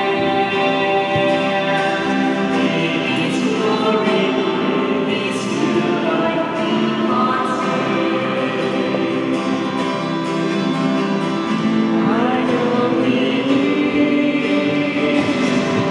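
A woman singing a hymn to acoustic guitar accompaniment.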